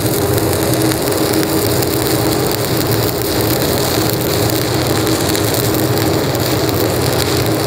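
Stick (shielded metal arc) welding arc crackling and sizzling steadily as the electrode burns, laying the hot pass in an open-root steel plate joint. A steady low hum runs underneath.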